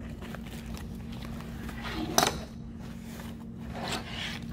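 Nylon protective-mask carrier bag being handled and turned over on a table: fabric rustling, with one sharp click about two seconds in. A steady low hum sits underneath.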